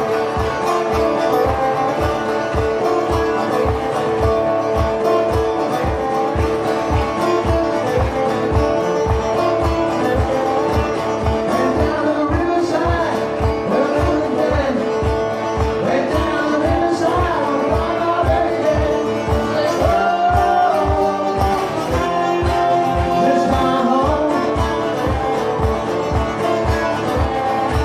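Live solo acoustic guitar strummed with a steady low pulse about twice a second, and a man singing over it from about twelve seconds in.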